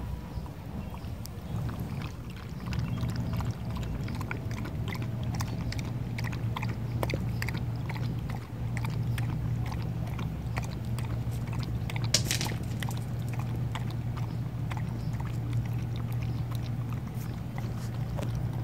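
Beagle lapping liquid from a bowl: a steady run of small wet clicks and slurps, with a low steady hum behind it.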